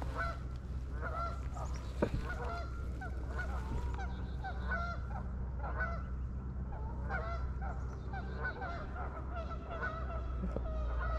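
A flock of geese honking: many short calls overlapping and repeating without a break.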